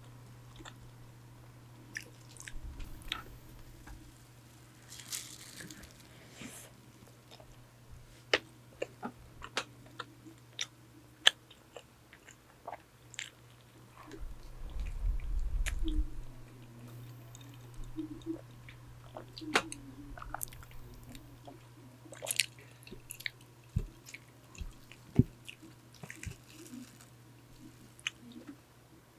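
Close-miked chewing and biting of a donut, with sharp wet mouth clicks and small crunches scattered throughout. A steady low hum from an electric fan runs underneath, and a low rumbling bump comes about halfway through.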